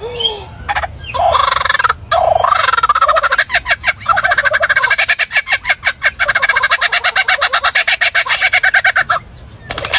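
A mimicking bird imitating sounds: a few separate calls, then a long, fast, even rattling run of repeated pulses lasting about six seconds, which stops shortly before the end.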